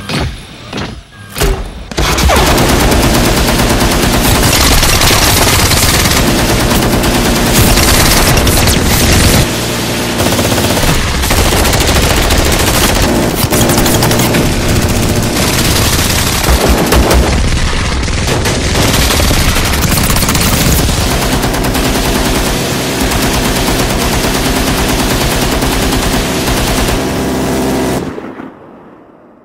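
Rotary minigun firing (dubbed film sound effect): a few separate shots in the first two seconds, then a long unbroken stream of very rapid fire with a steady whirring hum underneath, dipping briefly near ten seconds and dying away near the end.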